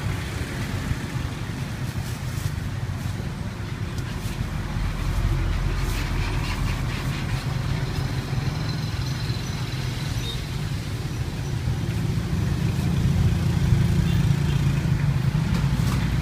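Steady low rumble of street traffic and running motor engines, swelling a little in places, with a few light clicks and clatters over it.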